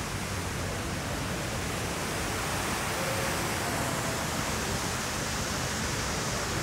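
Steady, even rushing noise of outdoor ambience, with no clear single source standing out.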